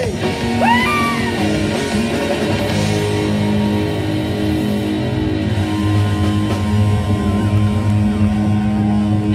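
Live rock band playing loudly, with electric guitars to the fore. A few bent notes come in the first second, then the band settles into long held notes.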